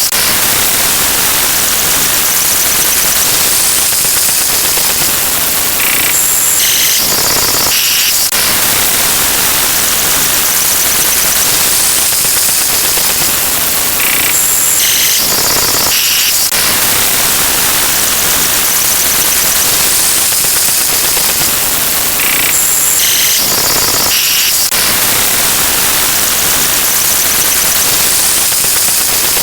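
Loud, dense wall of many sound effects layered on top of one another, heard as a steady hiss-like cacophony. A short patterned stretch of stepped high tones comes back about every eight seconds.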